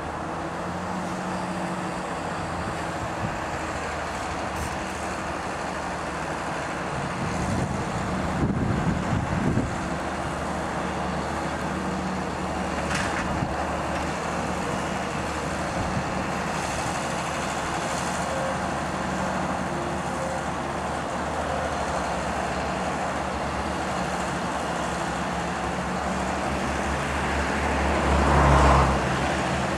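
John Deere 7930 tractor's six-cylinder diesel engine running steadily with its seven-furrow reversible plough lifted out of the ground. The sound swells louder twice, about eight seconds in and again near the end.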